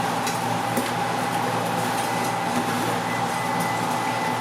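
A fan motor runs steadily, giving a low hum with a constant high whine, and a few faint clicks over it.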